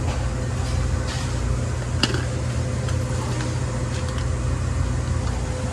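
Steady low rumble of road and engine noise inside a moving van's cabin, with a faint steady hum and a single sharp click about two seconds in.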